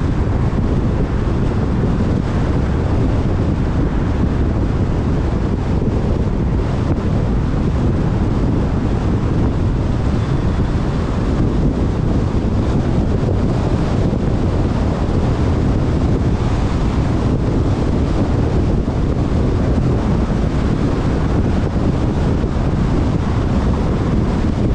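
Steady wind rumble on the microphone of a GoPro mounted on a moving Kia Cerato, mixed with the car's road noise while driving at speed.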